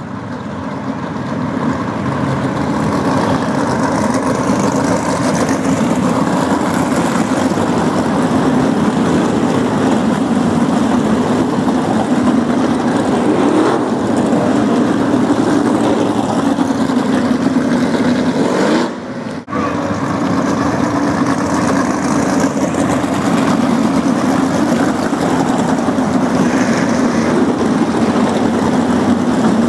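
Race car engine noise on the track: a loud, steady drone that fades in at the start and drops out briefly about nineteen seconds in.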